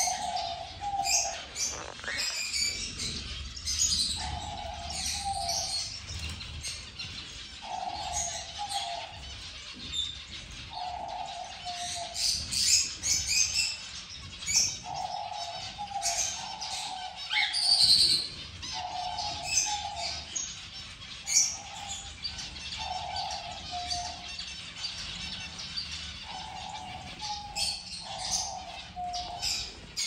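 A flock of zebra finches calling in quick, high, nasal chirps. Under them a pigeon coos in a low phrase about a second long, repeated every two to three seconds.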